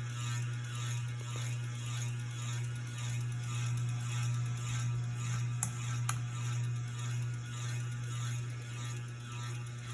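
Hampton Bay San Marino ceiling fan motor running with a steady hum that gently swells and fades, with two short clicks a little past halfway. The owner blames a bad capacitor for the fan's weak speeds.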